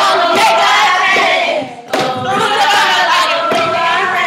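A step team chanting in long held calls in unison, broken once about two seconds in, with boots stomping on a wooden floor.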